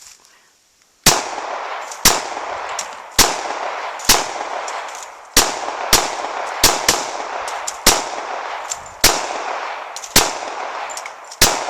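A gun fired in single shots, about a dozen at an uneven pace of one every half second to a second, starting about a second in. Each shot is followed by a long echoing tail.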